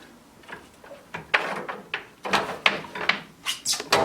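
A quick, irregular run of about a dozen sharp clicks and knocks, hard objects being handled and bumped.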